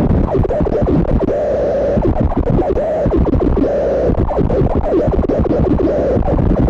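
Harsh noise music from a chain of distortion and fuzz effects pedals, including Death By Audio pedals and a BOSS Metal Zone. It is a loud, dense wall of crackling, stuttering distortion, with a midrange tone that swells and fades every second or two.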